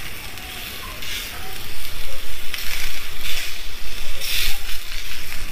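Bacon-wrapped beef sirloins sizzling on a hot grill grate, the bacon fat crackling in uneven surges that grow louder from about two seconds in.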